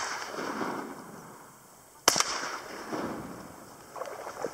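Shotgun shots at flying ducks: the echo of one shot fades in the first second, then a second shot cracks about two seconds in, its report rolling away over about a second. A few light clicks follow near the end.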